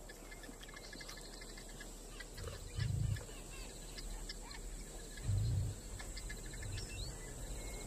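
Natural ambience of insects and birds: a steady high insect hum with scattered bird chirps and ticks. Two short low thuds stand out, about three seconds in and again about five and a half seconds in.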